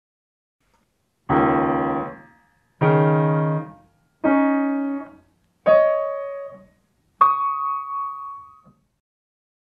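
Grand piano: the group of two black keys (C-sharp and D-sharp) struck together five times, hopping up an octave each time from low to high, about one and a half seconds apart. Each pair rings and fades, the last and highest one held longest.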